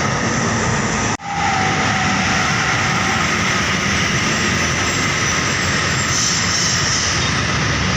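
Loud, steady noise of heavy road traffic, with buses and trucks passing close by. The sound cuts out for a moment about a second in.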